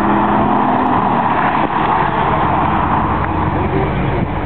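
Lexus IS F sedan's V8 driving past on the track: a steady engine note for the first second or so, then a loud even rush of noise as the car goes by and moves away.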